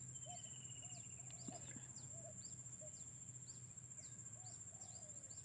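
Faint outdoor ambience: a steady high-pitched insect drone, with a string of short, quick high chirps and a few soft low calls from small creatures.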